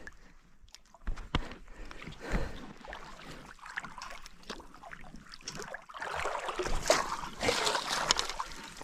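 Water splashing and sloshing at the edge of a lake as a hooked brown trout is fought and brought in, with irregular splashes and knocks that grow busier and louder in the last few seconds.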